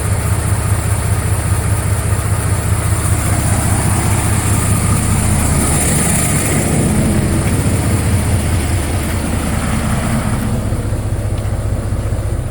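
International A26 diesel engine running during a cylinder cutout test, with a steady low hum that shifts in tone about halfway through and again near the end. It is making an odd sound that the owner does not believe it should be making.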